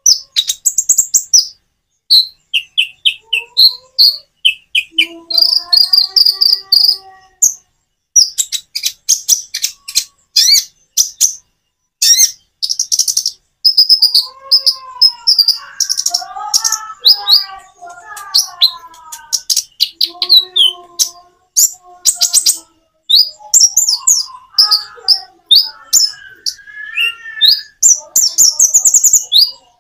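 Konin (kolibri ninja) sunbird singing: bursts of rapid, high-pitched chirps and twitters with short pauses between them. Lower warbling phrases come in a few times.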